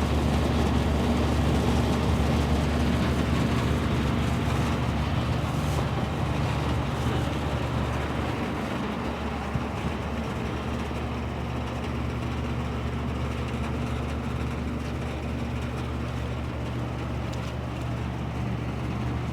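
Outdoor heat pump unit running in freezing weather with its coil iced up: a steady hum of the compressor and fan, easing slightly about eight seconds in.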